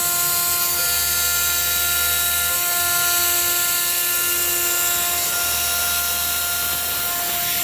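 STYLECNC STM1325 CNC router spindle running with a steady high whine while it mills rubber. A lower hum underneath swells twice.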